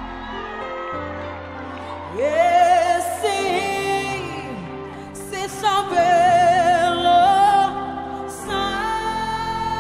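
A slow song: a solo voice sings long held notes with vibrato and slides over a steady instrumental backing.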